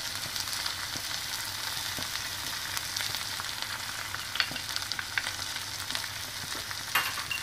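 Elephant foot yam cubes frying in sesame oil in a kadai, a steady sizzling hiss. A few light taps come from a spatula knocking spice powder out of a small steel cup, about four and a half and seven seconds in.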